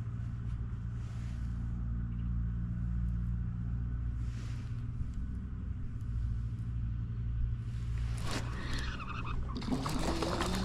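Steady low motor drone. About eight seconds in it is joined by a busier run of splashing and rustling.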